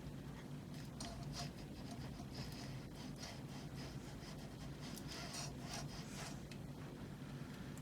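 Faint, irregular scraping and clicking of a screw being tightened by hand into a 3D printer's metal frame, with the tool and parts rubbing against each other.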